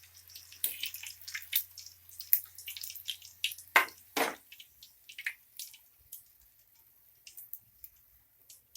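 Chicken kabab pieces deep-frying in hot oil, crackling with irregular sharp pops that thin out after about six seconds, with two louder pops about four seconds in. The popping is water in the chicken boiling off into the oil; it dies away as the pieces finish frying.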